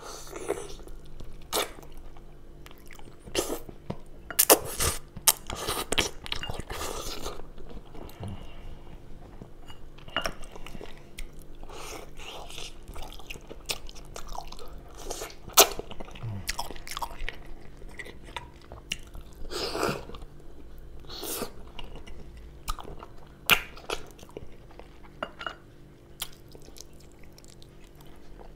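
Close-miked chewing and biting of slow-stewed lamb eaten by hand, with many sharp mouth clicks and smacks of uneven loudness.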